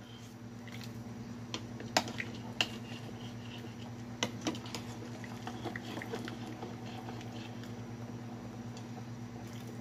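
A ladle stirring a stainless steel pot of pork soup, with a few light clinks and knocks against the pot, mostly in the first half, over a steady low hum.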